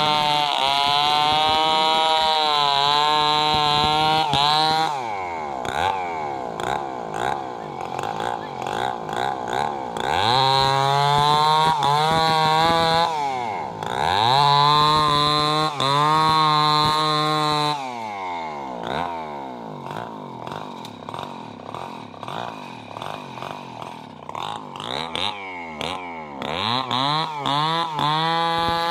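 Stihl two-stroke chainsaw ripping a log lengthwise at full throttle. The revs fall away and climb back up several times, with a longer spell of lower, unsteady revs in the second half before it opens up again near the end.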